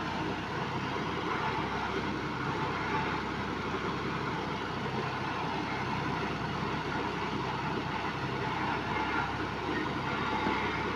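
Engine of a sand-piling rig running steadily, a continuous mechanical hum with no break or change in pace.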